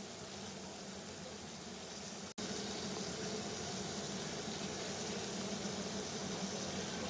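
Water boiling steadily, a continuous bubbling hiss with a faint low hum underneath. About two and a half seconds in, it cuts out for an instant and comes back slightly louder.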